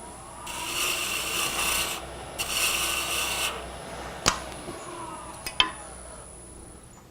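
A gouge cutting a spinning hard maple blank on a wood lathe: two passes of a dry shaving cut, about half a second in and again around two and a half seconds in, each lasting a second or so. A couple of sharp clicks follow later.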